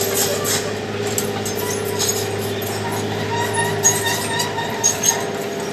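Backhoe's diesel engine running steadily under work, with a few short sharp metallic clinks in the second half.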